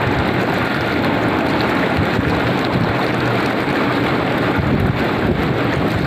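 Outdoor jacuzzi's jets running: a steady rush of churning, bubbling water and pump noise.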